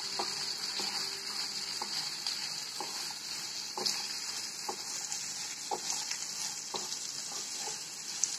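Sliced onions and whole spices sizzling in hot oil in a non-stick pan as they fry toward brown, with a steady hiss. A wooden spatula stirs them, scraping and tapping the pan about twice a second.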